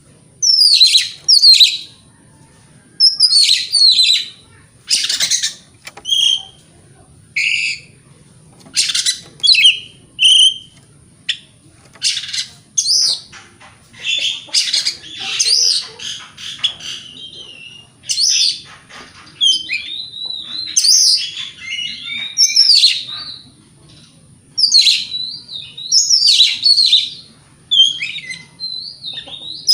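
Oriental magpie-robin (kacer) singing a loud, varied song of whistled and chattering phrases, mostly short bursts with brief pauses between, running into longer continuous stretches about midway and again a few seconds later.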